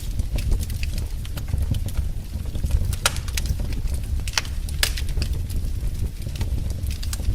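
Wood fire in a fireplace crackling: irregular sharp pops and snaps over a steady low rumble of burning, with the strongest pops a few seconds in.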